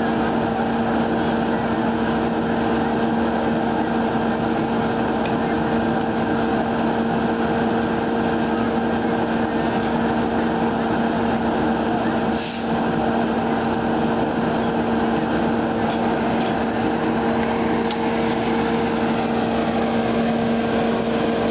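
Engine of a hydraulic rescue tool power unit running steadily at constant speed, a continuous even drone with a brief knock about halfway through.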